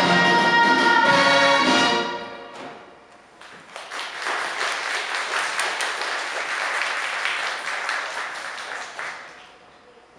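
Orchestral music stops about two seconds in and dies away. An audience then applauds for about six seconds, and the clapping fades out near the end.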